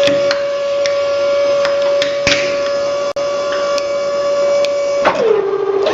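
Hydraulic press pump running with a steady whine while a toy is crushed, with scattered sharp cracks and one louder snap about two seconds in. Near the end the whine drops in pitch for under a second, the motor bogging under load, then comes back up.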